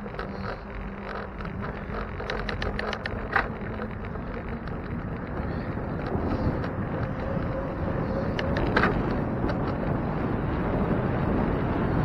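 Wind on the microphone and road noise while riding a bicycle, with scattered clicks and rattles, getting louder toward the end.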